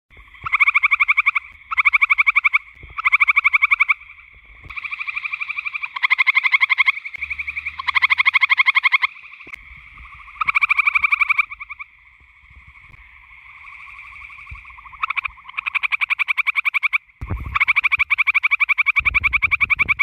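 Gray treefrogs calling: a series of musical, rapidly pulsed trills about a second long each, repeated every second or two, with several frogs overlapping over a fainter steady chorus of trills. A low rumble sits under the last few trills.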